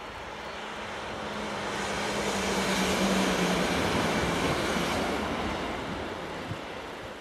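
Red Deutsche Bahn regional electric multiple unit passing close by. A rush of wheel and air noise swells to a peak about three seconds in and then fades, with a low hum that drops in pitch as the train goes past.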